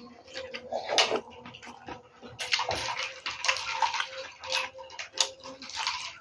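Wet chewing and lip-smacking of a person eating by hand close to the microphone, in irregular bursts of crackles and clicks, over a faint steady hum.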